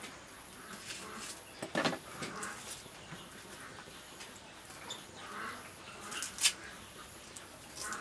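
A cleaver knocks sharply on a wooden chopping board twice, about two seconds in and near the end, while a shallot is peeled by hand. Behind it is farmyard background: animal calls, likely hens clucking, and a high chirp repeating steadily.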